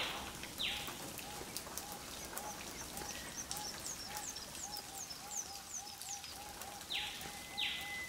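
Rainforest birds calling: a low call repeated three or four times a second throughout, with higher falling chirps and whistles over it and a long steady whistle near the end.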